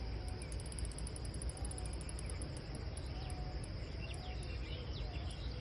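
Insects chirping in a fast, high, evenly pulsing trill, over a steady low rumble of outdoor background noise.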